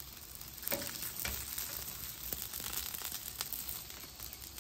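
Green onions and chorizo potatoes sizzling on a hot flat-top griddle, with a few short clicks of a metal spatula against the cooktop.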